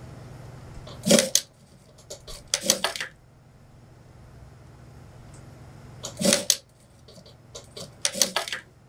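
Industrial sewing machine stitching in four short bursts of a few stitches each, in two pairs, with light clicks between the bursts.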